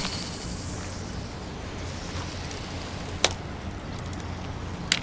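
A fishing cast at the start: a swish and fishing line hissing off the reel, fading over about a second. Then a steady low wind rumble on the microphone, with a single sharp click about three seconds in and a few more clicks near the end.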